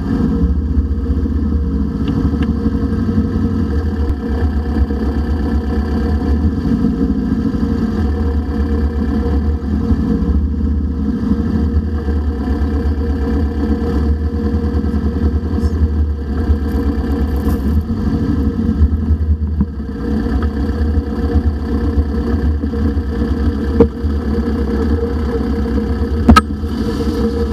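Dune buggy engine running steadily as it drives over sand, heard from on board, with two short sharp knocks near the end.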